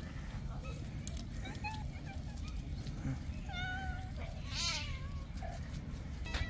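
Several stray cats meowing, short separate meows, some bending in pitch, over a steady low rumble. A brief hissy burst comes about halfway through.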